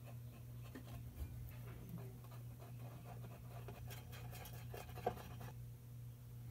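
Faint scratching and small taps as two-part epoxy is squeezed from its tubes and stirred with a stick on the bottom of a metal tank, with one sharper click about five seconds in. A steady low hum runs underneath.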